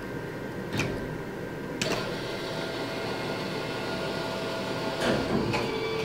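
Claw crane machine's motors running as the claw travels, drops and lifts, over a steady background hum, with a couple of sharp clicks near the start.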